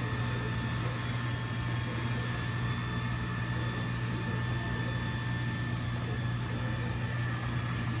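Roomba robot vacuum running across a bare concrete floor: a steady motor hum with a thin, steady high whine above it.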